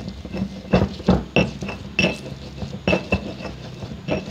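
Stone pestle (ulekan) knocking and grinding in a stone mortar (cobek), crushing shallots, garlic, chili and salt into a spice paste: irregular knocks about twice a second, each with a short ring.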